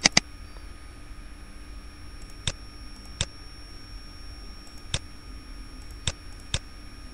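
Computer mouse button clicking about seven times at uneven intervals, a pair right at the start and then single clicks every second or so, over a faint steady hum.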